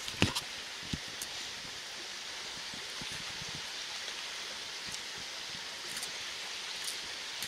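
Steady rush of running water, with a couple of sharp knocks in the first second.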